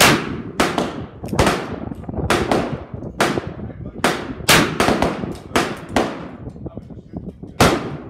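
Gunshots on a shooting range: a .45 Colt shot from an Uberti 1873 Cattleman single-action revolver right at the start, then a dozen or so more shots at irregular spacing, some only about half a second apart, too quick for one single-action revolver, so other shooters on the line are firing too. Each shot is a sharp crack with a short ringing tail.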